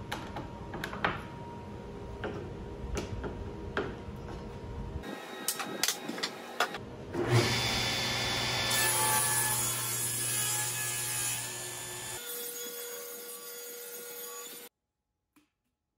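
Table saw ripping lumber, with a few sharp knocks of wood in the first seconds. The loudest stretch is a cut from about seven to twelve seconds in. The saw keeps running after it, and the sound cuts off abruptly near the end.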